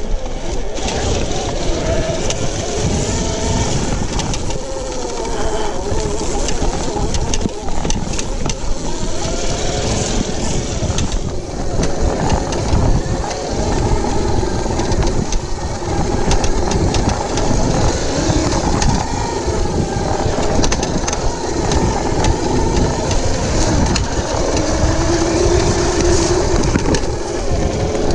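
Oset 24 electric trials bike being ridden: the electric motor's whine rises and falls with the throttle. Underneath is a steady rumble and rattle of the tyres and bike over a rough, rocky dirt trail, with scattered knocks.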